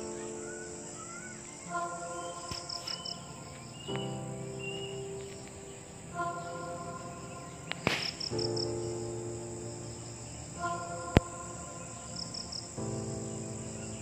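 Background music of sustained soft chords that change every few seconds, laid over a steady high insect buzz and a cricket chirping in quick groups of about four pulses every few seconds. A single sharp click sounds about eleven seconds in.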